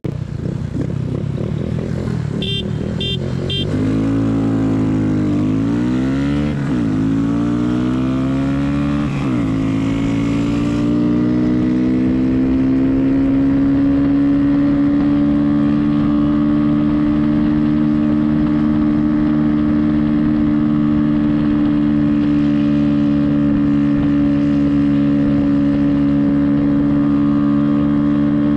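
A small 125 cc single-cylinder mini motorcycle pulls away and accelerates. Its engine pitch climbs and drops back at two gear shifts, then holds steady at cruising speed. Three short high ticks come just before it pulls away.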